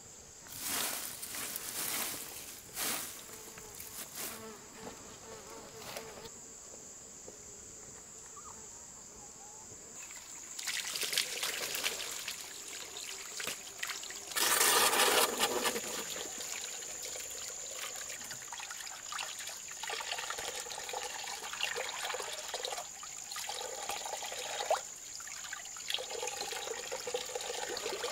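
Insects droning in a steady high tone throughout. After a few short knocks early on, water starts running from a tap into a stone basin about a third of the way in and splashes as hands wash in it, with a louder gush about halfway through.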